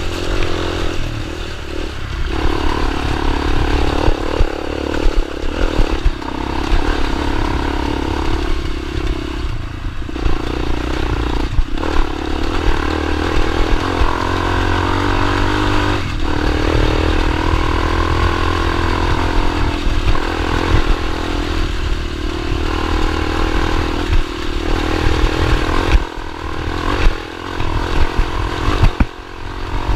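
Small dirt bike engine running as it is ridden, its pitch rising and falling with the throttle, with a few sharp knocks near the end.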